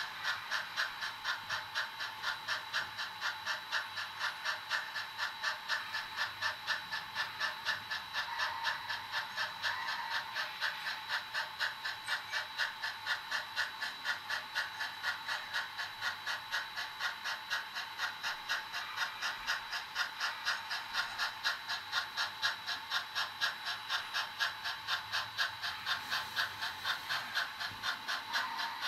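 HO scale model steam locomotive's sound decoder playing a steady, quick steam chuff through its small speaker, about three even beats a second with a hiss.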